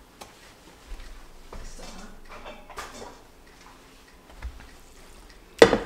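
Faint, scattered clicks and knocks of kitchen handling, a few light taps spread out over several seconds, with a short spoken word right at the end.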